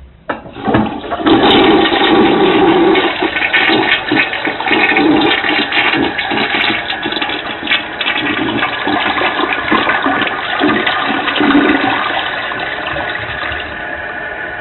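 Toilet flushing: a short click at the start, then a loud rush of water with gurgling that eases into a steadier hiss near the end.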